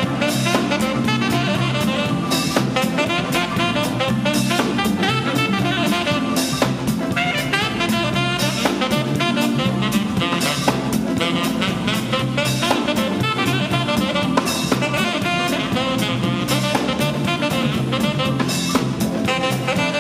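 Live jazz band music: a saxophone playing the lead over a drum kit, bass and guitar in a steady groove.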